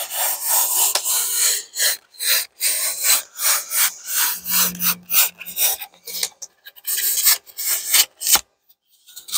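Knife cutting back and forth through a piece of dense expanded polystyrene foam board: a quick run of scratchy strokes, about two or three a second, that thin out and stop near the end.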